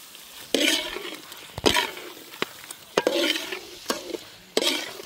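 Metal ladle stirring a thick chicken pepper fry in a large metal pot. There are four scraping strokes, about one every second and a bit, with sharp clicks where the ladle knocks the side of the pot.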